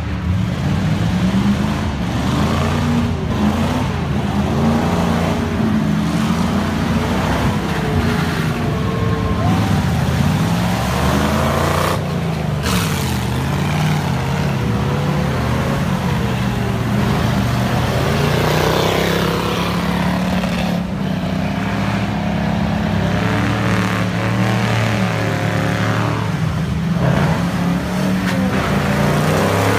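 Heavy off-road trucks' engines revving hard in deep mud, the pitch rising and falling again and again as the drivers work the throttle.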